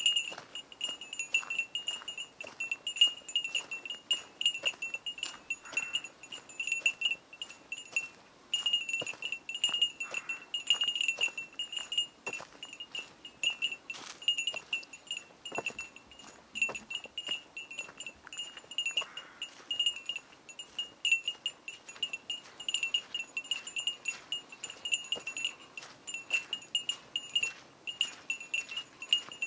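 A small hiker's bear bell jingling with each stride of someone walking a forest trail, over footsteps on dry leaves and twigs. The ringing stops for a moment about eight seconds in.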